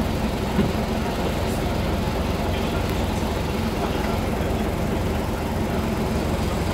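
Old city bus's diesel engine idling steadily, heard from inside the passenger cabin, with a brief knock about half a second in.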